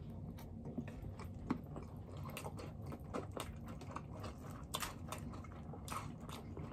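Close, faint mouth sounds of eating: chewing spicy Korean noodles topped with cheese and Cheetos, with many short, scattered clicks through it.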